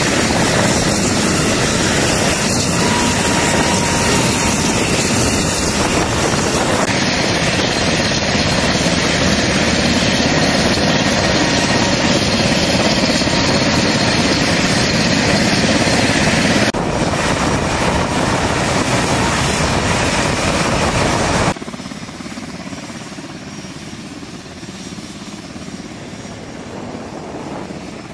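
Sikorsky H-60 rescue helicopter running on the ground, its turbine engines and turning rotor making a loud, steady noise that shifts abruptly a few times. About three quarters of the way through it drops suddenly to a quieter, steady hum of A-10C jets taxiing.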